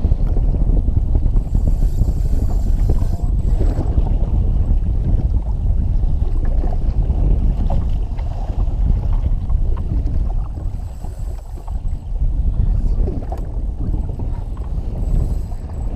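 Wind buffeting an action-camera microphone over choppy sea, a loud steady low rumble, with water slapping against a jet ski's hull.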